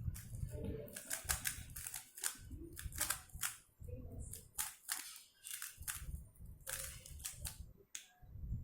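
A plastic MoYu RS3M 2020 3x3 speed cube being turned fast: quick irregular runs of sharp clacking layer turns, broken by brief pauses.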